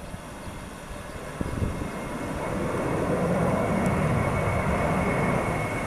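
Jet airliner engines growing louder over the first few seconds, then holding a steady roar with a thin high whine.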